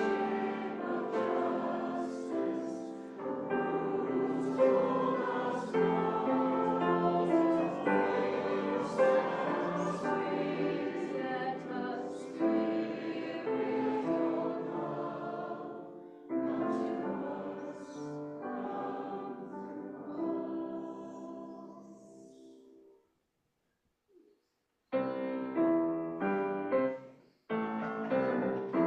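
Choir singing with piano accompaniment. It fades out about three-quarters of the way through, and after a short silence the piano starts again near the end.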